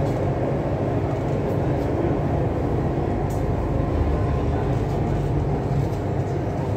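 Chennai Metro train running, heard from inside the passenger car: a steady, even rumble with a faint steady hum over it.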